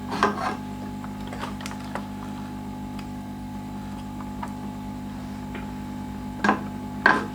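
Light clicks and taps of soldering tools on a laptop circuit board during desoldering, a few of them louder, over a steady low electrical hum.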